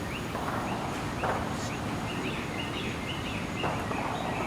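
Small birds chirping in short repeated calls, over a steady rumble of wind on the microphone, with a few brief rustles.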